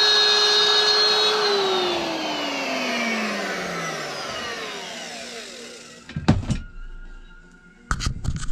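An electric power tool's motor whines steadily, then is switched off and winds down, its pitch falling smoothly over about three seconds. A few sharp knocks follow near the end.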